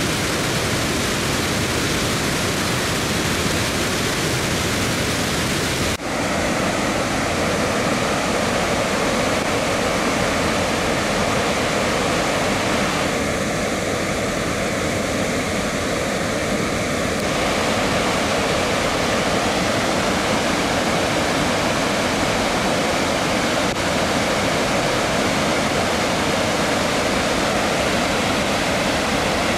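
Floodwater pouring over the rim of Ladybower Reservoir's bellmouth overflow spillway and down its shaft: a steady, loud rush of falling water, with one brief dip about six seconds in.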